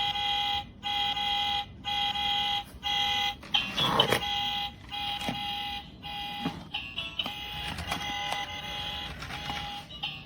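Toddler remote-control toy car's electronic sound chip beeping: steady tones in blocks about a second long with short gaps, changing to a quicker run of shifting tones in the second half. A short clatter about four seconds in.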